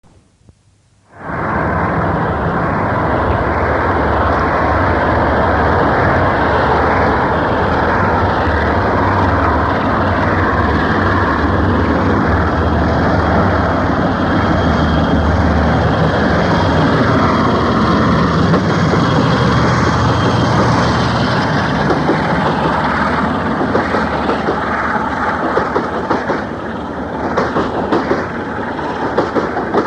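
Sulzer-engined British Rail diesel locomotive passing at full power with a Freightliner container train, the sound starting suddenly about a second in; after about twenty seconds the engine gives way to the clatter of container wagons over the rail joints. Heard on a 1970s cassette recording.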